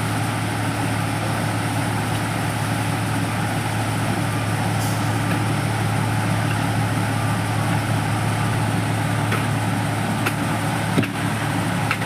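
Diesel engine of heavy road-paving machinery running steadily, with a couple of short knocks near the end.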